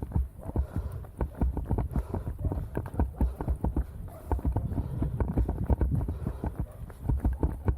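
A runner's footsteps on snow: a quick, even run of dull thumps close to the microphone.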